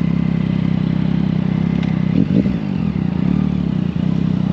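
Motorcycle engine idling steadily, with a brief rise and fall in engine pitch about two seconds in.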